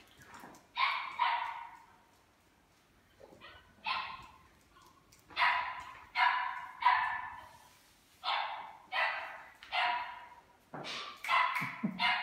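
Doberman Pinscher puppy barking: about a dozen short barks in runs of two or three, with pauses of a second or two between the runs.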